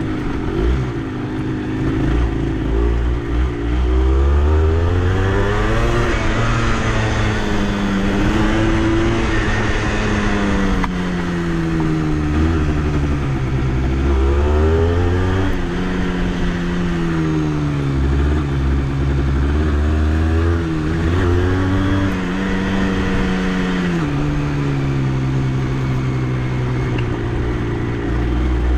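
Honda CRM80's two-stroke single-cylinder engine under way, revving up and easing off again and again as the bike is ridden, with its pitch dropping sharply a couple of times.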